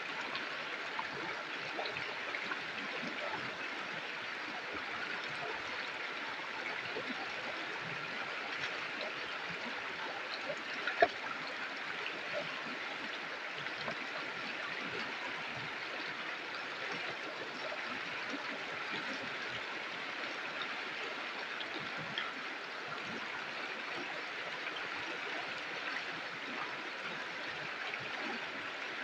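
A river flowing steadily, a continuous even rush of water. A single brief sharp click stands out about eleven seconds in.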